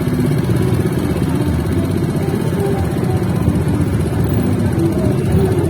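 Steady din of motorcycle engines running close by, mixed with a general hubbub of voices.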